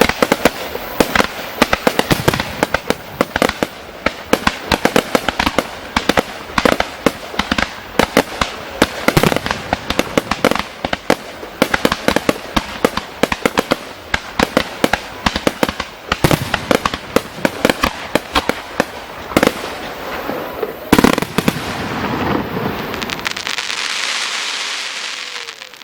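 Fireworks display in full barrage: a dense, rapid run of sharp aerial shell bursts and bangs, several a second. Near the end the bangs thin out into a sustained crackling hiss that fades away.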